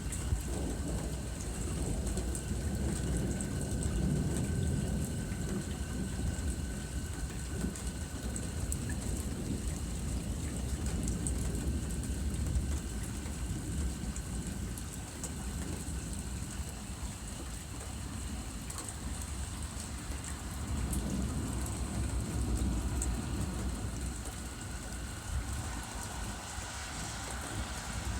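Steady rain falling, with low rolling thunder rumbling underneath that swells twice, early and again past the middle.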